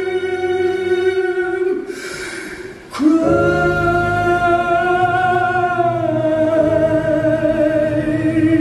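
Music: singing with long held notes over accompaniment, easing off about two seconds in, then a new sustained note from about three seconds on.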